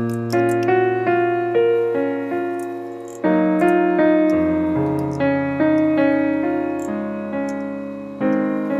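Background music: solo piano playing a slow melody over chords, with new chords struck at the start, about three seconds in and near the end, each left to ring and fade.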